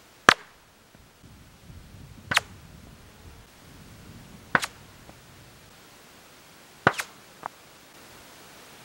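Four distant .22 rifle shots about two seconds apart. Each report is followed shortly by a fainter, sharp crack of the bullet arriving near the camera, which has slowed below the speed of sound and so arrives after the sound of the gun. The gap between report and bullet is widest on the last shot.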